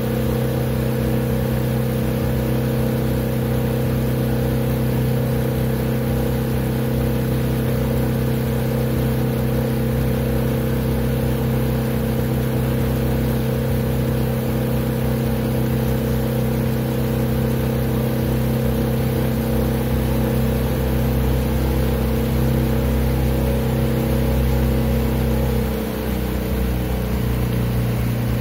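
Outboard motor of a small aluminium boat running steadily close by. Near the end the engine note briefly dips and shifts in pitch.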